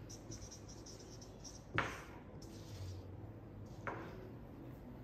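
Kitchen knife slicing through a block of glycerin soap base and striking the cutting board: two sharp taps about two seconds apart.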